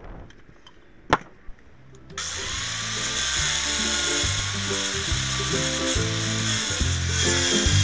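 Electric angle grinder cutting through a quartz countertop slab. It comes in abruptly about two seconds in, a loud grinding hiss with a wavering whine, after a sharp click about a second in. Background music plays underneath.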